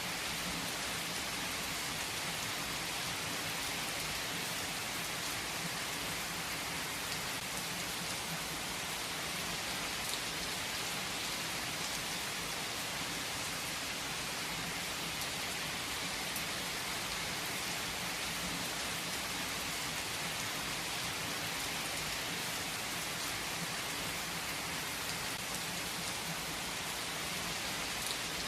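Steady rain falling on a surface, an even hiss with a few faint drop ticks, unchanging throughout.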